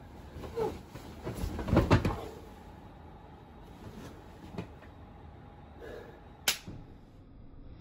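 A stuffed grappling dummy slammed head-first onto a mattress in a powerbomb, with the wrestler dropping down with it: a cluster of heavy, dull thuds about two seconds in. Softer knocks and fabric rustling follow, and a single sharp click comes near the end.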